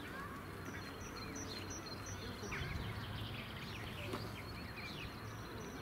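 Outdoor ambience of small birds chirping, with a short high note repeated in quick runs, over faint background voices of people talking.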